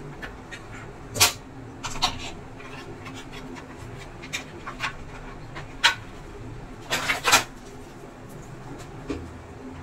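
Handling noise from the parts of an opened induction cooktop: scattered sharp clicks and knocks of plastic and metal being moved, the loudest a quick cluster about seven seconds in, over a faint steady hum.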